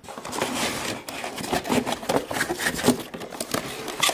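Plastic toy parts and packaging being handled: irregular rustling, scraping and light clicking, busiest in a dense crinkly stretch in the first second.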